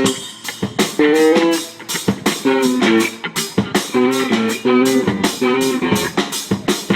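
Live rock band playing: guitar chords over drum kit and bass guitar, with a regular drum beat.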